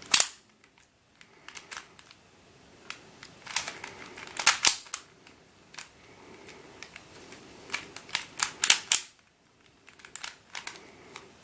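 Plastic 3x3 latch cube being scrambled by hand: faces turned in short irregular bursts of sharp clicks as they snap into place, with quiet pauses between.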